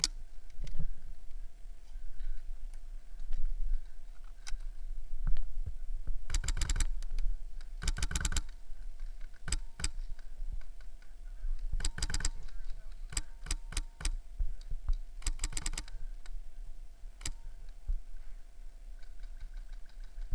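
Airsoft guns firing: several short bursts of rapid sharp clicks, with single shots scattered between them.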